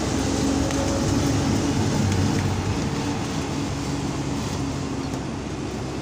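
A road vehicle driving along: steady engine hum with road and wind noise, growing a little quieter in the second half.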